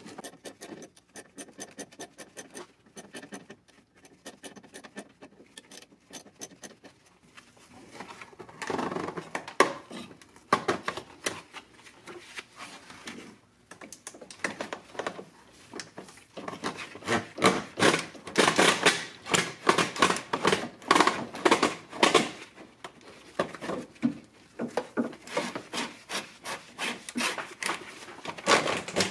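A hand ratchet clicks in quick strokes, tightening a hose clamp on a transmission cooler line. From about eight seconds in come louder bursts of rubbing and scraping as a rubber transmission cooler hose is worked behind the radiator by gloved hands.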